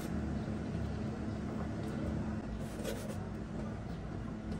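A cleaver slicing through pork belly on a wooden chopping board: a few faint cuts and scrapes over a steady low hum.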